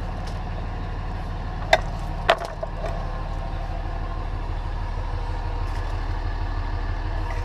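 Dodge Ram 3500's 5.9L Cummins turbo diesel idling steadily. Two sharp knocks come about one and a half seconds in, the second just over half a second after the first.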